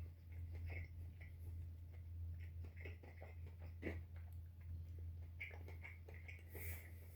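Faint chewing of fried chicken: small irregular crackles and wet clicks, over a steady low hum.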